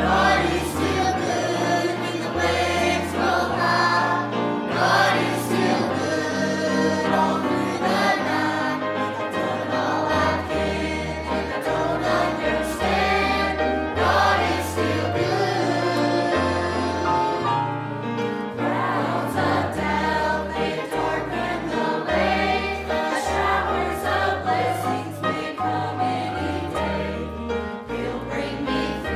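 Church choir of men and women singing a gospel song together, over piano accompaniment with a steady bass line.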